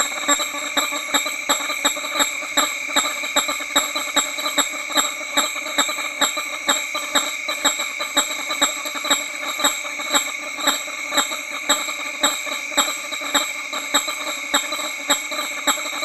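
Male hammer-headed fruit bats giving honking display calls: a close bat and others behind it honk in a steady, regular series of about two to three honks a second.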